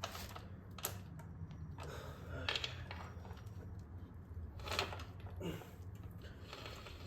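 A new motorcycle roller chain being fed through by hand: a few separate metallic clicks and clinks of the links against each other and the sprocket, over a low steady hum.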